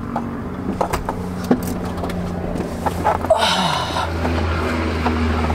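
Work van's engine idling with a steady low hum, with scattered knocks and rustles from someone climbing into the driver's seat and a brief hiss about halfway through.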